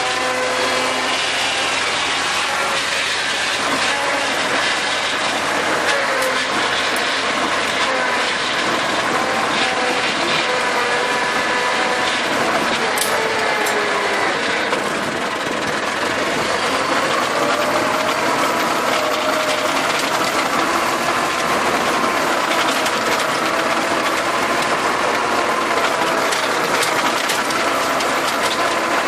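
Small tractor's engine running steadily under load while it drives a rear-mounted rotary tiller through the soil, the tiller's gears and blades adding a dense mechanical clatter. The engine's pitch drifts slowly up and down.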